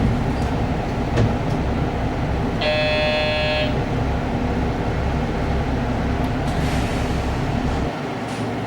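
Diesel railcar engine idling with a steady low rumble; about two and a half seconds in, a short horn toot lasting about a second.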